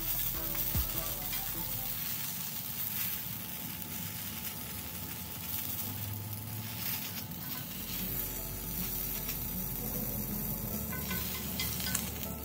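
Halved sweet Palermo peppers sizzling steadily in oil on a hot cast-iron grill pan, with a few light clicks as tongs lift them off.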